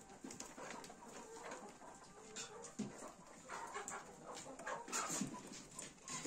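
Faint farmyard animal calls: short, irregular calls with scattered clicks.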